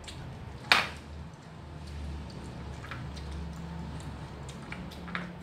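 A person eating with her hands: soft, wet chewing with a few faint clicks, and one sharp click about a second in that is the loudest sound, over a steady low hum.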